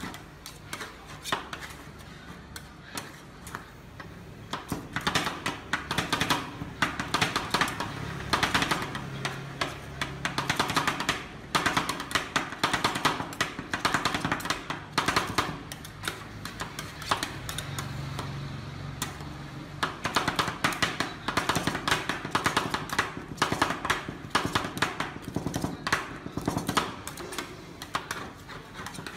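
Two metal spatulas rapidly chopping and scraping ice cream mix on the frozen steel plate of a rolled-ice-cream machine: fast, uneven clacking strikes of metal on metal.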